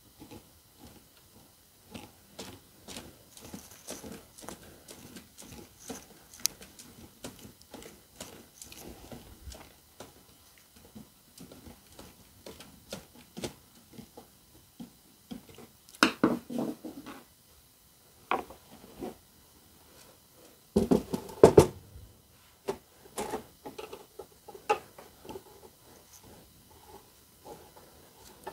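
Hand screwdriver and pan head screws being worked through access holes into an MDF circle on a metal lazy Susan bearing: scattered small clicks, taps and scrapes, with louder clatters about halfway through and again some five seconds later.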